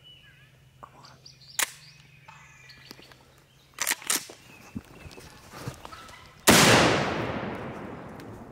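A Benelli shotgun fired once about six and a half seconds in: a loud, sudden report that dies away slowly as it echoes. It follows a few sharp clicks, one about a second and a half in and a quick pair about four seconds in.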